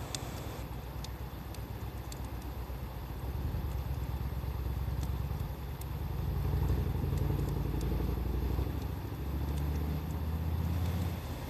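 A motor vehicle's engine running, a low pitched rumble that shifts up and down in pitch and loudness throughout. Scattered small pops from a crackling wood fire sound over it.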